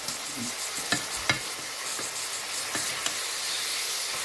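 Veal sweetbreads frying in clarified butter in a pan, a steady sizzle. It is broken by a few sharp clicks as the pieces are turned over in the pan.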